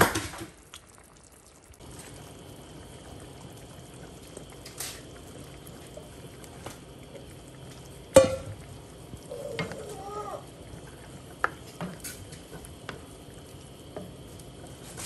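Spoon and pan sounds from a pan of beef kaldereta with chunks of carrot, potato and bell pepper: a sharp knock about eight seconds in, then scattered clicks and scrapes as the stew is stirred.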